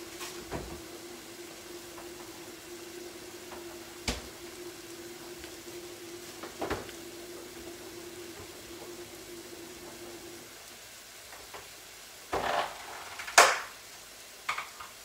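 Sliced onions and garlic sizzling in a steel frying pan as the wine in it cooks off, with a steady low hum that stops about ten seconds in. A few light knocks come early on, and clattering kitchenware near the end, the loudest a sharp clatter about thirteen seconds in.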